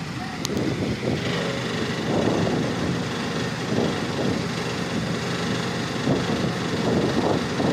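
Diesel engine of a wheeled mobile crane running steadily as it lifts a load on its hook.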